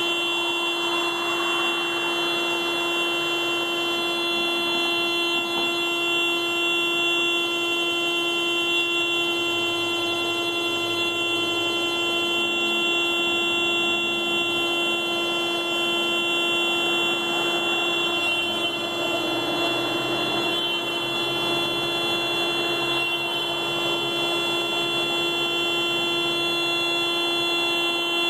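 Car alarm sounding one steady, unbroken horn tone that does not pulse or let up.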